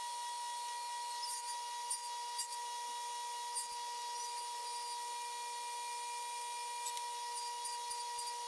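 White oak frame rail being shifted and set against a wooden crosscut sled on a table saw: light wooden rubbing and a few small clicks and knocks, the sharpest about three and a half seconds in. A steady high-pitched hum runs underneath.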